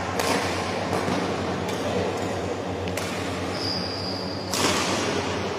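Badminton racket strikes on a shuttlecock during a rally: four sharp smacks, about one and a half seconds apart, the last the loudest. Shortly before that last strike a shoe squeals on the court.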